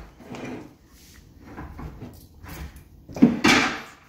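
A toddler eating noodles with plastic training chopsticks from a plastic bowl: a few short mouth and utensil noises, the loudest about three seconds in.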